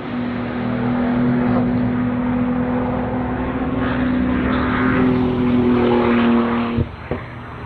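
BMW M4 GT3's twin-turbo straight-six race engine running at a steady, unchanging pitch, then cutting off sharply about seven seconds in.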